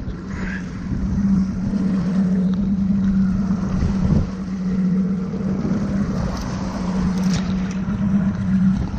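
Outboard motor running steadily at trolling speed, a constant low drone, with wind on the microphone and water washing past the stern.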